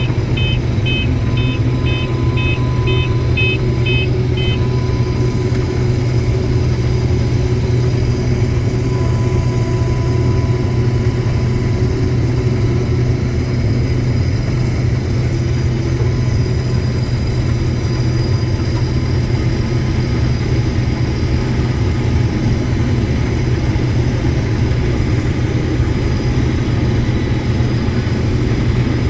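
Steady drone of a heavy farm machine's engine running at constant speed through the corn harvest. A run of about ten quick electronic beeps, two a second, sounds over it for the first four or five seconds.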